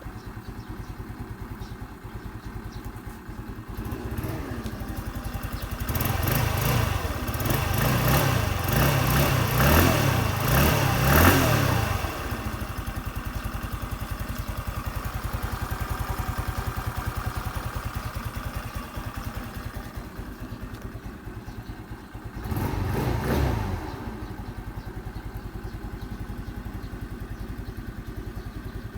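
Hamachi Racer RS 50cc four-stroke scooter engine idling with a steady fast putter, revved with the throttle several times between about 4 and 12 seconds in and once more briefly near 23 seconds, dropping back to idle after each.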